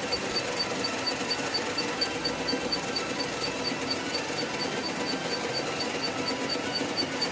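A machine running steadily with a rapid, regular ticking, about six ticks a second.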